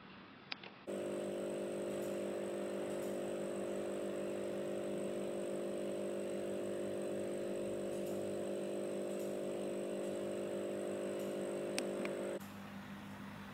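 Aqua One Precision 9500 two-outlet aquarium air pump running on its low setting: a steady hum with several tones. About a second before the end it gives way to the fainter hum of an Aqua One Precision 12000 four-outlet pump on low.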